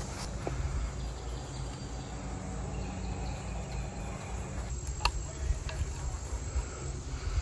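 Insects calling steadily in the background, with a couple of sharp clicks about five seconds in.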